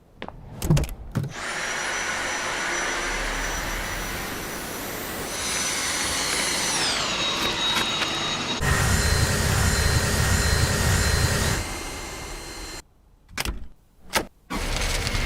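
Handheld vacuum cleaner motor running with a high whine over a rush of air, in several edited clips. Partway through the whine glides down in pitch. A louder, lower-sounding run follows, then the sound cuts off with a couple of short bursts.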